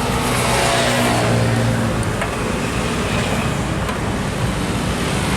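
A large vehicle, most likely a bus, passes on a busy highway. Its engine note falls in pitch as it goes by in the first couple of seconds, over steady tyre and traffic noise.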